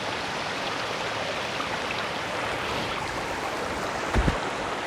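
Steady rush of the Muthyala Dharma waterfalls' falling water. A brief low thump about four seconds in.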